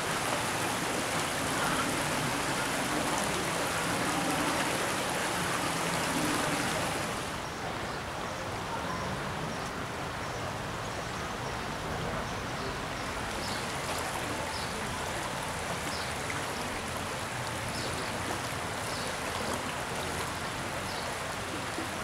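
Shallow stream running over a stony bed: a steady rush of water. It drops suddenly to a quieter steady hiss about seven seconds in, and faint short high chirps come through in the later part.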